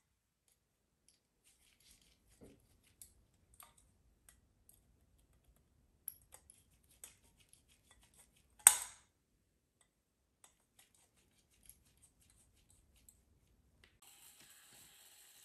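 Small metallic clicks and taps of a screwdriver working on the brass dial and movement of a conical pendulum clock, with one sharp, loud metal click a little under nine seconds in.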